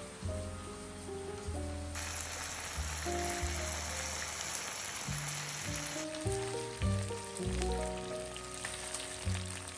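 Thin-sliced marinated meat sizzling on a stone-coated grill pan over a gas burner, loudest for about four seconds in the middle, over soft background music.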